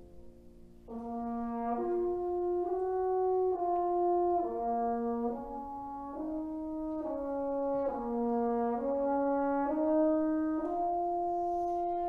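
French horn playing a slow melodic line of held notes, each about a second long, entering about a second in as an earlier chord dies away.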